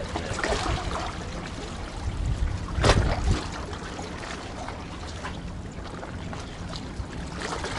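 Seawater sloshing among concrete tetrapod blocks, with wind rumbling on the microphone and a brief louder rush about three seconds in.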